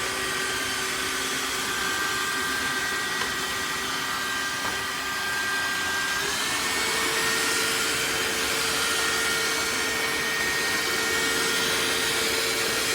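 Tineco iFLOOR 3 cordless wet-dry floor cleaner running, its motor a steady whine over a rushing noise. About six seconds in the pitch steps up and holds as the machine changes its power level to suit the mess.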